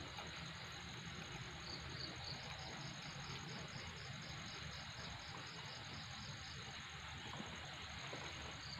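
Insects chirping steadily and fairly faintly: a fast, high, pulsing trill, with a slower, even run of high chirps beneath it.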